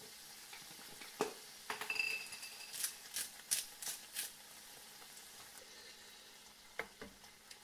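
Razor clam meat, garlic and herbs sizzling gently in butter and olive oil in a frying pan over low heat. A few sharp clicks and clinks of kitchen items being handled come about one to four seconds in, and a single knock comes near the end.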